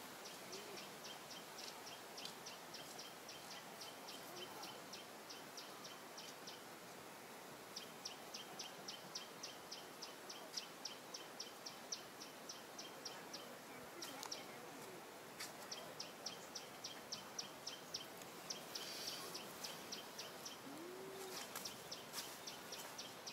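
Outdoor ambience: a steady background hiss with a high, rhythmic chirping repeated about five times a second in runs of several seconds, pausing briefly between runs.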